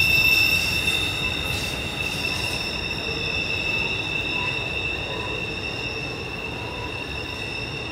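Wheel flanges of a double-stack intermodal freight train squealing against the rail on a sharp curve: several steady high pitches held together over the low rumble of the well cars rolling past. The sound fades gradually.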